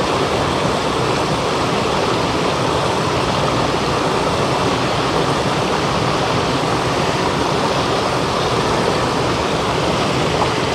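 Mountain stream rushing over rocks: a steady, unbroken noise of flowing water.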